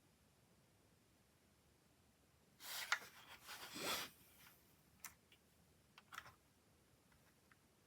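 Smoke alarm being handled: rubbing and scraping for about a second and a half with a sharp click in it, then a few light clicks.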